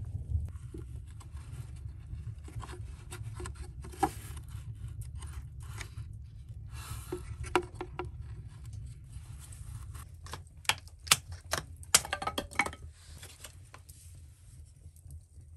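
Dry kindling sticks being split apart by hand and with a knife: scattered light wooden cracks and scrapes, with a burst of sharp snaps about eleven to twelve seconds in, over a steady low hum.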